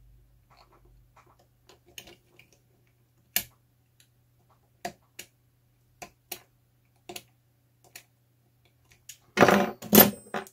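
Knife blade cutting and scraping through a copper trace on a cable-TV tap's circuit board: single sharp scratchy clicks a second or so apart, then a louder clatter of clicks near the end.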